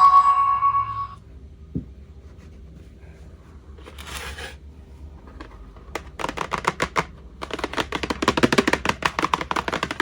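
A toy microphone's electronic tune ends on a held note about a second in. After it comes a single click, a brief rustle, and then, from about six seconds in, runs of fast crackling clicks as the plastic toy and its packaging are handled.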